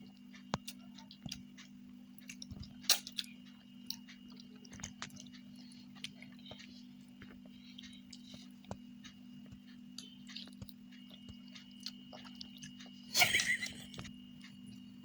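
A child eating noodles: faint chewing and small scattered clicks of a spoon or fork against a plate, over a steady low hum. A louder clatter-like noise comes about three seconds in, and a brief louder burst near the end.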